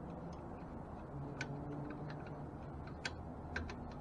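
Light, irregular clicks and ticks, about half a dozen, from spokes and nipples being handled and fitted into a bicycle wheel's hub and rim. A steady low hum runs underneath.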